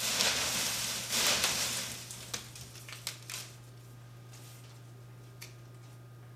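Hands stirring through shredded paper strips in a glass box, a dense papery rustling that dies away about two seconds in. Then a few short crinkles as a paper slip is pulled out and unfolded.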